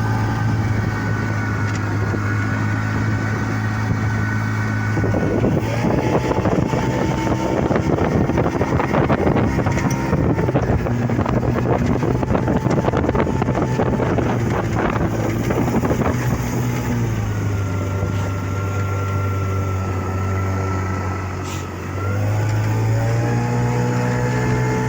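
Two-stroke Vikhr outboard motor running. About five seconds in, its sound turns rougher and noisier for some twelve seconds. Near the end it drops to a lower note and then picks up again.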